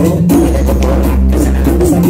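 Loud dance music played over a mobile-disco sound system: a long, deep bass note held for most of the two seconds under steady percussion hits.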